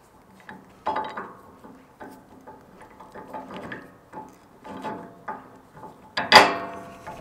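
Steel D-ring shackle, washer and pin clinking and rattling against the bumper bracket as they are lined up and fitted by hand. One sharp, ringing metal clank comes a little over six seconds in.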